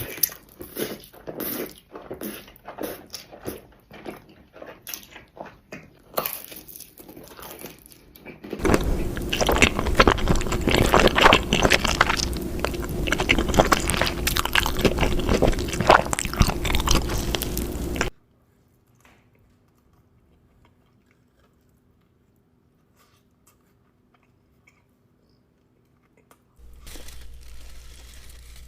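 Close-miked biting and chewing of pizza, with crisp crust crunching in quick bites, then a long stretch of loud, dense chewing. This gives way to several seconds of near silence before the chewing starts again near the end.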